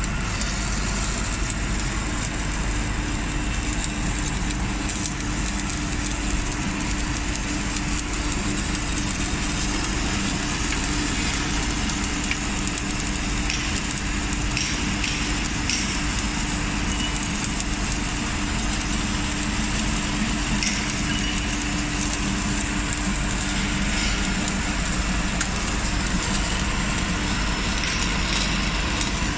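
CNC pole shut-welding machine running a submerged-arc weld along the pole's single longitudinal seam: a steady hiss over a constant hum, with a few faint ticks.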